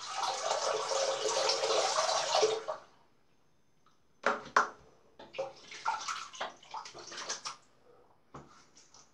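Water running from a tap and splashing for about two and a half seconds, then a run of short splashes and small knocks, typical of rinsing between shaving passes.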